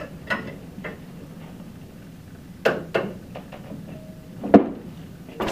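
Metal clanks and knocks of a wrench and socket working the bolts of a gasketed pipe flange, a few separate sharp hits with the loudest about four and a half seconds in.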